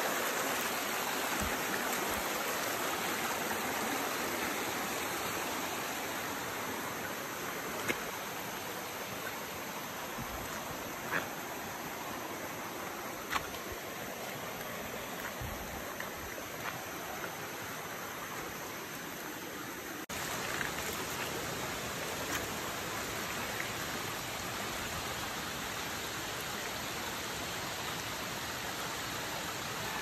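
Shallow rocky stream rushing over stones: a steady water noise, with a few brief taps in the middle.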